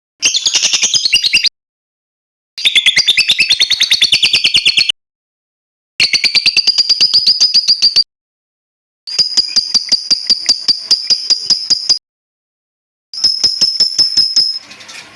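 A songbird's rapid trilling call, a fast run of high chirps about a dozen a second, given in five bursts of one to three seconds with silent gaps between them.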